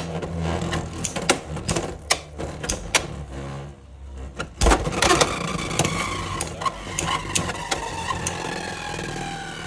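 Beyblade X spinning tops battling in a stadium: clicks and knocks at first, then a sharp impact about halfway through as tops are launched, followed by a whirring whine that slowly falls in pitch as the tops spin down, with clicking collisions over it.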